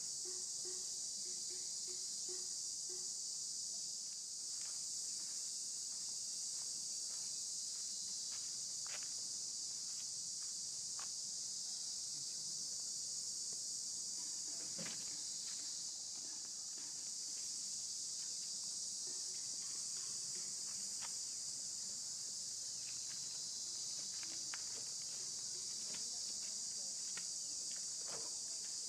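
A steady, high-pitched insect chorus that never lets up, with a few faint scattered clicks and taps.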